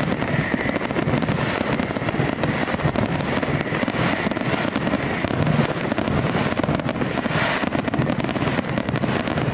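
Fireworks going off in quick succession: a dense, continuous crackle of many small bangs and pops.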